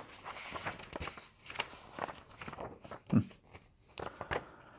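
Scattered soft knocks and rustles of handling noise, about a dozen short ticks spread unevenly through the pause, with one brief low pitched sound about three seconds in.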